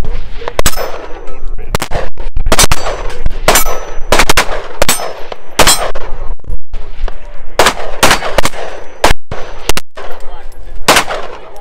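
Semi-automatic pistol fired in a steady string of about a dozen shots, roughly one a second, with high pings from steel targets ringing after some of the hits.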